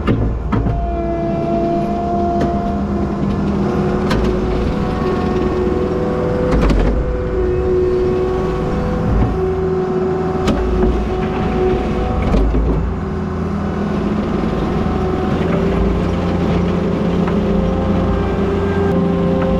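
Skid steer's diesel engine working steadily while back-blading gravel and mud, its pitch rising and falling as the load changes. Several sharp clanks from the machine are spread through the work.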